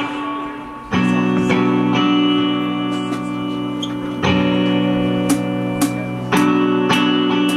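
Electric guitars played live through amplifiers, strumming chords that ring out. A fresh chord is struck about a second in, and again at about four and six seconds.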